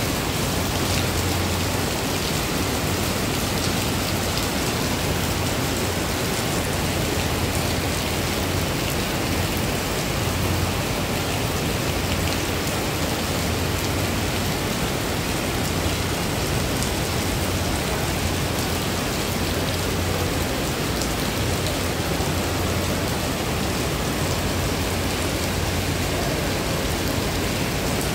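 Heavy tropical rain pouring steadily onto flooded paving and trees, in a dense, unbroken hiss. Gusts of wind buffet the microphone with a low rumble that comes and goes.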